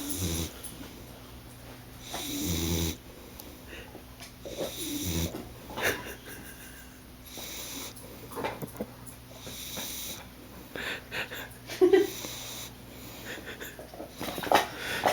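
Boxer dog snoring in its sleep, a slow, regular snore about every two and a half seconds, with a few shorter, sharper breath sounds in the second half.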